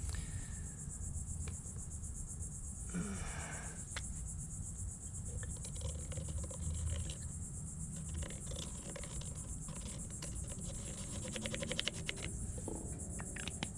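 A steady, high-pitched chorus of insects, with light handling clicks and, from about two-thirds of the way in, quick scratchy strokes of a felt-tip marker on a plastic cutting board as a dot is filled in.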